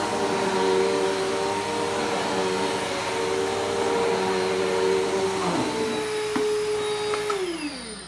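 Bissell Powerforce Helix Turbo upright vacuum running steadily, a motor whine over a dense rush of air and brushroll noise. About seven seconds in it winds down, its whine falling in pitch as the sound fades.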